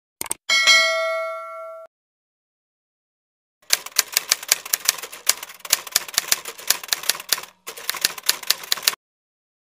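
Editing sound effects: a short click, then a bright bell ding that rings out for about a second and a half. After a pause comes rapid typewriter key clatter lasting about five seconds, with a brief break partway through.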